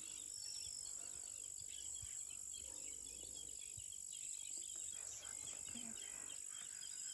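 Faint insect chorus, a steady high-pitched drone, with many small bird chirps over it.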